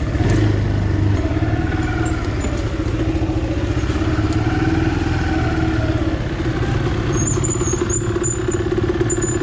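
Quad (ATV) engine running steadily at low revs under light throttle.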